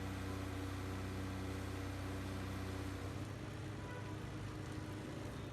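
A motor vehicle engine running steadily with a low hum over road and water noise, its note shifting about halfway through.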